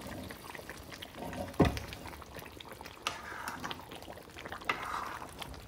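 Thick chicken curry bubbling in a karahi as a metal ladle stirs it, with small scrapes and clicks of the ladle on the pan and one sharp knock about a second and a half in.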